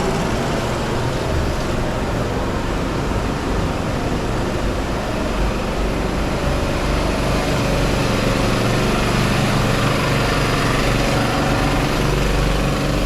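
A motor engine runs steadily with a low hum, under a constant haze of street traffic noise; the hum grows a little stronger about halfway through.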